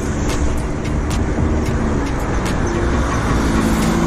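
Road traffic: motor vehicles running along the road, with an engine hum that grows louder near the end as a vehicle draws close.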